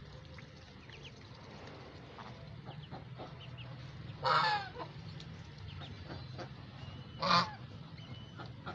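Domestic goose honking twice, about three seconds apart, each call short and loud. Between the honks, faint light ticks of geese pecking grain off the ground.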